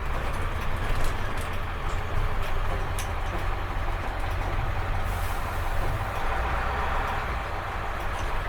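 School bus engine running, a steady low rumble with scattered rattles and clicks.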